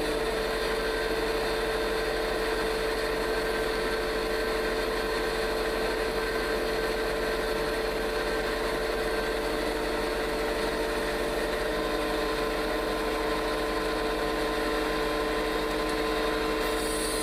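A steady machine hum with a constant pitch over a low electrical hum, unchanging throughout.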